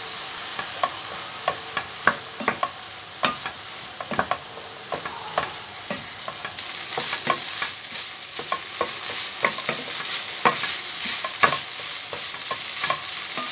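Ground beef with diced carrot and onion sizzling in a nonstick frying pan while a wooden spatula stirs it, with frequent sharp clicks and scrapes of the spatula against the pan. The sizzle gets louder about halfway through.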